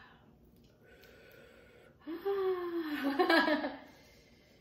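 A woman's drawn-out wordless exclamation, about two seconds in, falling steadily in pitch for over a second, after a soft breath.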